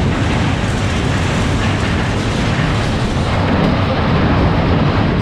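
Wind buffeting the action camera's microphone and the rumble of a Superbob-style funfair ride's train of cars running round its track at speed: a loud, steady rush with no clear beat.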